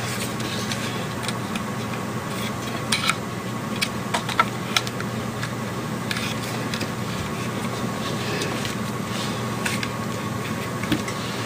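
Scattered light clicks and rattles from the plastic ball-jointed legs of a flexible tripod as they are bent by hand, over a steady low hum.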